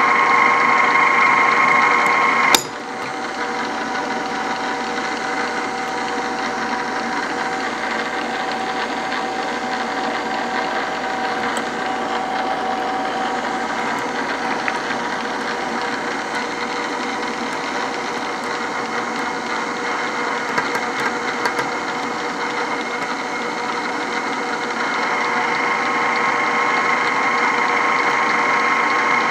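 Power-downfeed drill press running steadily with a constant gear whine, its bit feeding through a block of 4140 steel. A sharp click comes about two and a half seconds in, after which it runs a little quieter; it grows louder again near the end.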